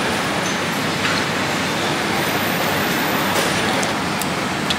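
Steady background din of a busy eatery, with a couple of faint clicks, like utensils on a steel bowl, near the end.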